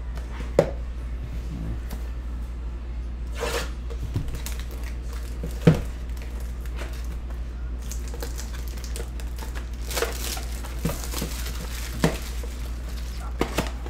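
Plastic shrink-wrap crinkling and tearing as a sealed trading-card box is opened, in short bursts a few seconds in and again near the end. A few sharp knocks of the cardboard box on the table, the loudest about midway, over a steady low hum.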